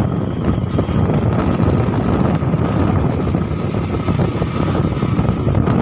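Steady running noise of a road vehicle in motion, with wind rushing over the microphone.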